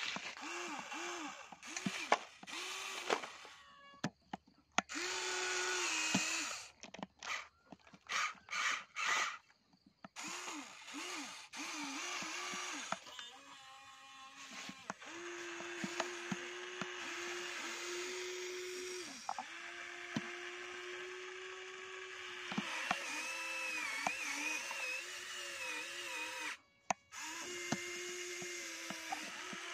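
Electric motors of a Huina RC excavator whining as the boom, arm and bucket move: many short stop-start spurts, then longer steady runs about halfway through, with occasional clicks.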